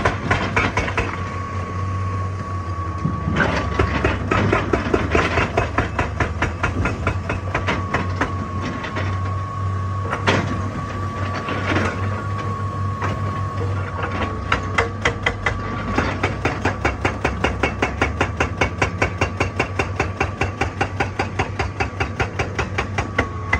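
Excavator-mounted hydraulic rock breaker hammering on rock with rapid, evenly repeated blows over the steady drone of the excavator's diesel engine and a steady high whine.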